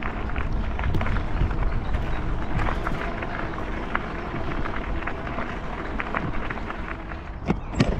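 Wind rumble and rolling noise from riding a full-suspension folding electric bike, with frequent small clicks and rattles from the bike over the ground. The noise eases near the end, where a few sharper clicks come.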